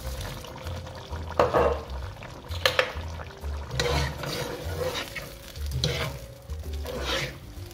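A spoon stirring tomato ragù in a vitrified-steel pot, scraping against the pot about every second or so, with the sauce sizzling underneath.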